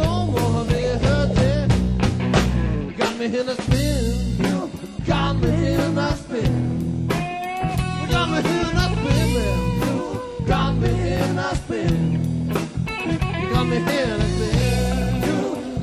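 Background blues-rock music with guitar, a steady bass line and drums.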